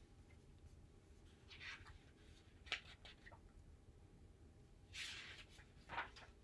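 Near silence: room tone with a few faint, short rustles and one sharp click.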